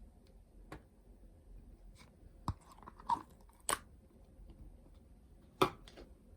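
Slime with shaving foam being kneaded and stretched by hand, giving a few scattered sharp pops and clicks with short pauses between them.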